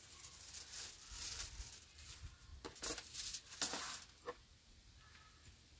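Aluminium foil crinkling and crackling as a foil-covered pan is handled, in an uneven run of crackles that stops about four seconds in, followed by a single light click.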